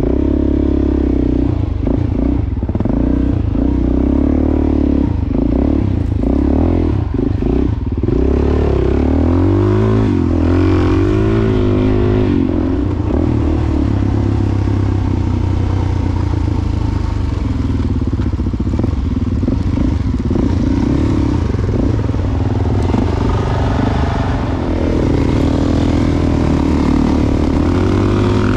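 Dual-sport motorcycle engine running under way, heard from the bike itself. The revs rise and fall repeatedly in the first ten seconds and again near the end, and hold steadier in between.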